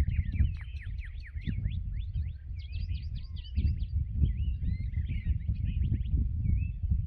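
Several birds chirping and calling, with many quick high notes overlapping, over a steady low rumble.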